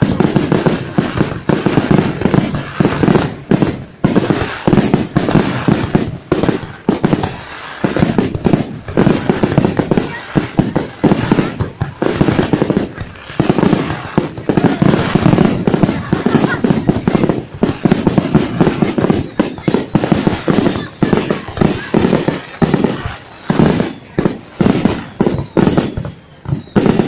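Fireworks going off in rapid, continuous volleys: many sharp bangs and pops a second, overlapping with hardly a pause.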